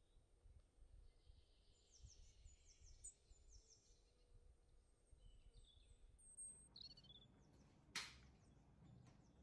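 Near silence: quiet room tone with faint high chirps scattered through it, and one sharp click about eight seconds in.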